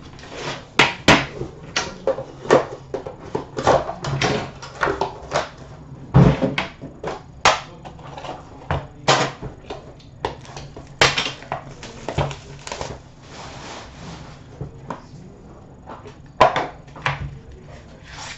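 Hands unpacking a box of hockey cards: a run of short taps, knocks and crinkles as the wrapping comes off and a metal tin and its inner cardboard box are handled and set down, with one heavier thump about six seconds in.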